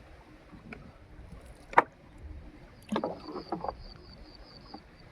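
Small wooden fishing boat being rowed: the oar knocks sharply against the wooden boat about two seconds in, then several quicker knocks follow about a second later. A faint, rapid high-pitched chirping runs under the last couple of seconds.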